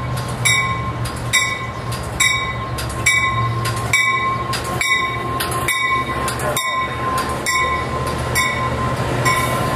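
Bi-level commuter train arriving and rolling past, its bell ringing steadily about once a second over the low rumble of the train and its passing cars.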